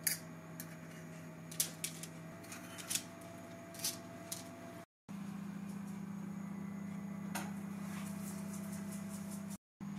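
Metal teaspoons clinking lightly against each other as sticky choux dough is scraped off onto a baking tray, several small separate clicks over a steady low hum. About halfway the sound cuts out for a moment, and the hum is then louder with only a couple of faint clicks.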